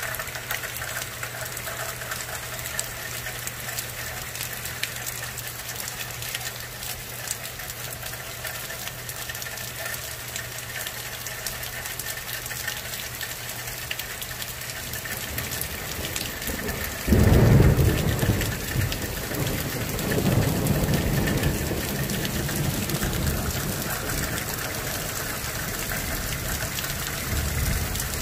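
Heavy rain falling steadily in a downpour. A little over halfway through, thunder breaks suddenly into a loud low rumble, swells again a few seconds later and then fades back under the rain.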